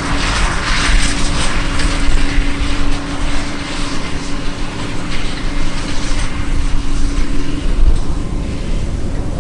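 John Deere 9610 combine running under load while harvesting corn: its turbocharged 8.1-litre PowerTech diesel drones with a deep rumble and a steady hum, over the rushing noise of the machine. The rushing eases and the hum drops out near the end.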